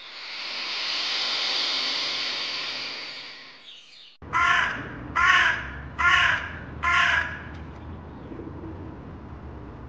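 A crow cawing four times, harsh calls about a second apart, after a hiss of noise that swells and fades away over the first few seconds.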